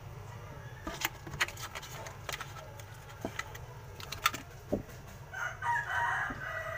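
A rooster crows once, starting about five seconds in and lasting about a second and a half. Before it come a few sharp clicks and knocks from hands working on the plywood box.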